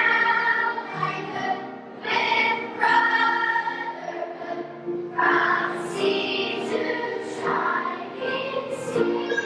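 Elementary school children's choir singing with musical accompaniment.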